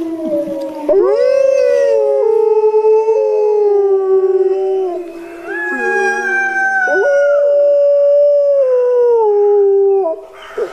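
Wolves howling in chorus: several long howls at different pitches overlap, each holding and then sliding up or down, with one voice rising sharply about a second in and another about seven seconds in.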